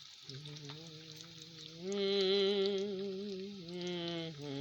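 A slow melody of long held notes, sung or hummed, stepping up in pitch about two seconds in and back down near the end, over a steady high hiss.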